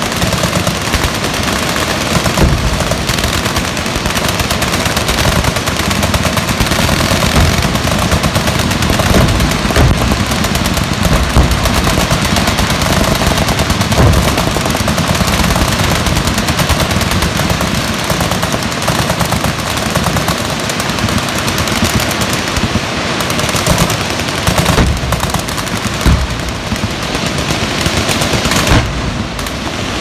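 Many machine guns firing at once in a continuous barrage of automatic fire, with no pause.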